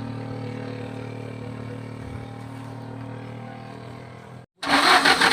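A vehicle engine running with a steady hum. About four and a half seconds in it breaks off, and a much louder, rapidly pulsing engine sound begins.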